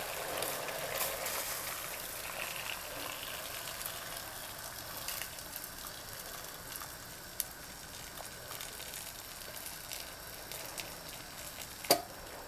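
Boiling water pouring in a steady stream from a kettle into an aluminium pressure cooker packed with pig's trotters and turkey necks, a continuous splashing hiss that grows slightly quieter. A sharp knock near the end.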